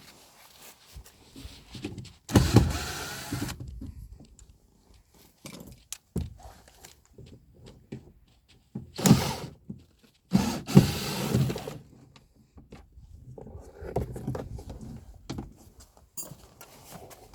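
Small electric motor of a cordless drill/driver running in three short bursts of about a second each, with tool clatter in between, as the fasteners of a car door check are worked.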